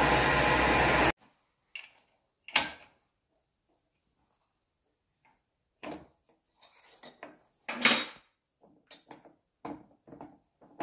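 A steady machining noise from the running lathe cuts off abruptly about a second in. Then come scattered metal clinks and knocks of tools and parts being handled, the sharpest about two and a half seconds in and a cluster around eight seconds.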